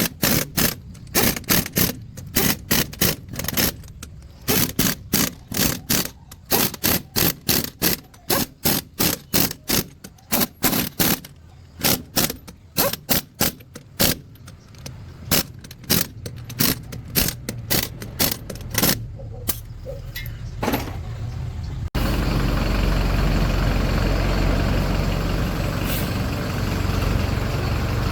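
Rapid sharp knocks, a few a second in uneven runs, for about twenty seconds. Then, after a sudden cut, a heavy truck's engine running steadily with a deep rumble.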